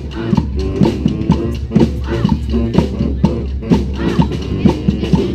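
Brass street band playing together: horns over a steady, driving drum beat.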